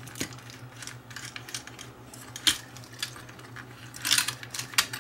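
Small metallic clicks and clinks of wire terminals being pulled off a telephone ringer's connections and the brass bell parts being handled, with one sharp click about halfway and a quick rattle of clicks near the end.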